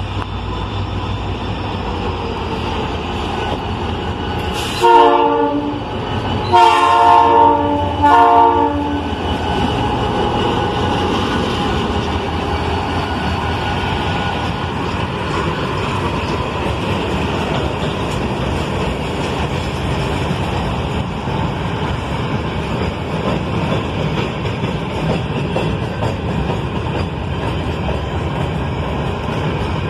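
GT22 diesel locomotive sounding its multi-note air horn in three blasts about five seconds in: a short one, then a longer one, then a short one. After that the locomotive and a long string of container wagons roll past steadily, wheels clacking over the rails.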